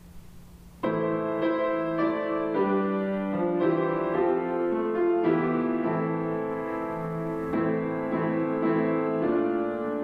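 Piano begins playing a hymn introit about a second in, after a brief near-quiet moment, with chords and a melody line moving on steadily.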